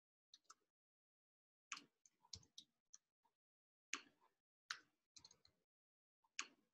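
Computer keyboard keys and mouse clicks tapped in short, scattered clusters, faint, with silent gaps between them.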